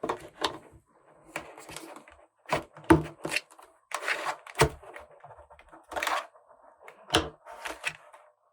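Small plastic toy pieces and packaging being handled: irregular sharp clicks and taps, about a dozen, with short rustles between them.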